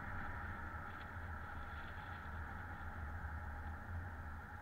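Steady low rumble of a car driving: engine and road noise, with a few faint light clicks.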